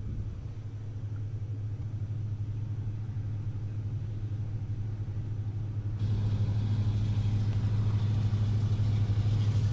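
Diesel locomotives of an approaching freight train heard from afar: a steady low drone that slowly grows louder, stepping up with more hiss about six seconds in.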